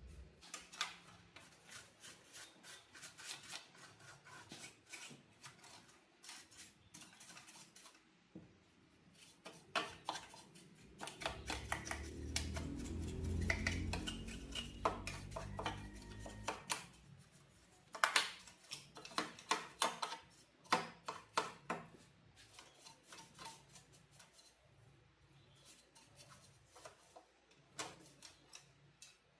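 Irregular small clicks, taps and clinks of tools and parts being handled during repair work on an old TV set, with a denser, louder run of clicks a little past the middle. A low hum sounds for a few seconds near the middle.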